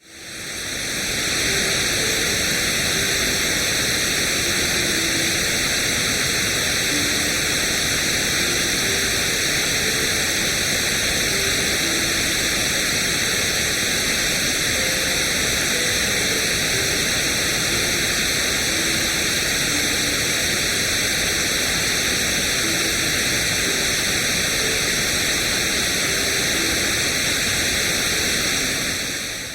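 Steady electronic white noise, an even hiss strongest in the upper range. It fades in over the first second or two and fades out at the end.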